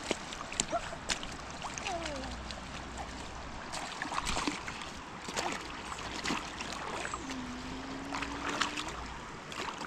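River water flowing steadily, with scattered short splashes and knocks.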